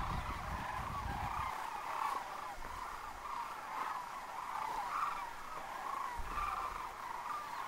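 A flock of sandhill cranes calling in flight: many overlapping rolling, rattling calls that run together into a steady chorus. A low rumble sits under the calls in the first second or so and again about six seconds in.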